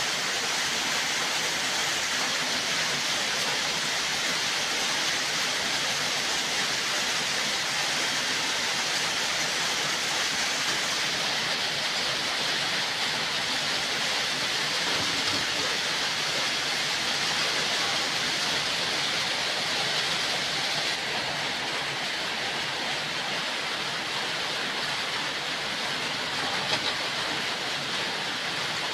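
Steady, even hiss with no distinct events, and one brief tick near the end.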